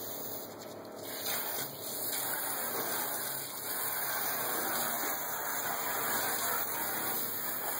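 Water spraying from a pull-down pre-rinse spray nozzle onto a fish and into a stainless steel sink, a steady hiss that grows louder about a second in.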